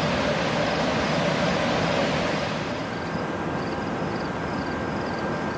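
Steady, even running noise of a standing Amtrak bilevel passenger train, its idling diesel locomotive and car ventilation, with a faint high steady tone joining about halfway through.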